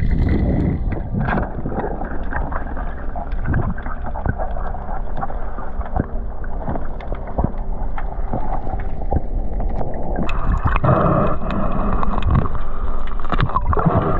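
Underwater ambience picked up by a camera during a reef dive: a muffled low rumble with many short clicks and crackles, growing louder and hissier about ten seconds in.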